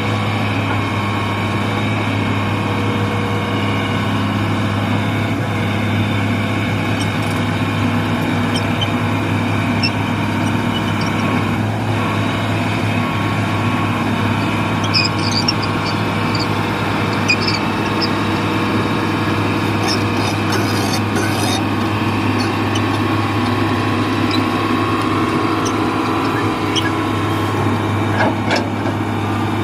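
Excavator's diesel engine running steadily at an even pitch, with a few faint metallic ticks and clanks partway through.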